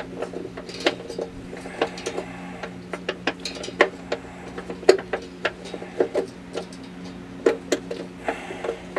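Irregular small metallic clicks and taps from a hitch installer's fish wire being twisted off a carriage bolt inside a car's frame rail, over a steady low hum.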